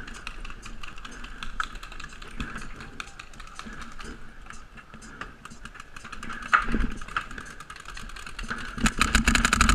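Paintball markers firing in quick, irregular sharp pops, coming thicker and louder as a rapid volley near the end.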